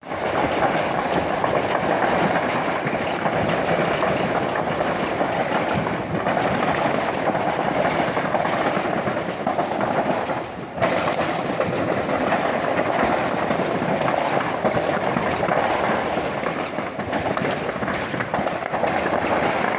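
A large fire in a plastics factory burning, a dense steady crackling and popping, with a brief dip about ten and a half seconds in.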